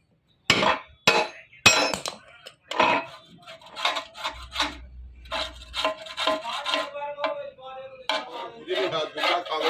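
Rhythmic scraping strokes of a hand tool worked back and forth on a metal machine part. It starts with a few separate strokes and then runs into a quicker, steady rhythm of about three strokes a second.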